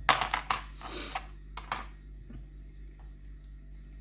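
Metal lock levers clinking against each other and the lock case as they are handled and lifted out of a lever mortice lock, with several sharp clinks and a brief rattle in the first two seconds.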